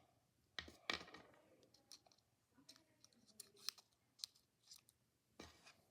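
Faint, scattered clicks and taps of tiny toy pieces, miniature macaroons, being handled and set down, a few spaced over several seconds.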